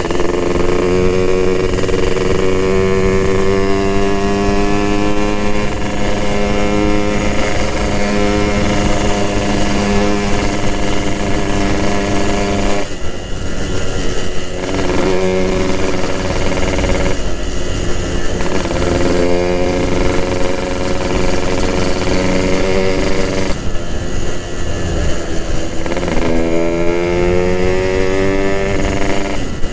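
Yamaha RX-King's two-stroke single-cylinder engine, carburettor jets raised and bored 0.50 oversize with mild porting, running under way at steady revs. It drops off briefly about 13, 17 and 23 seconds in, then rises in pitch as it pulls up through the revs near the end.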